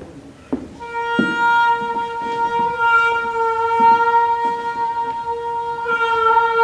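A cello sustaining one high bowed note, held steady and unbroken, entering about a second in after a sharp click.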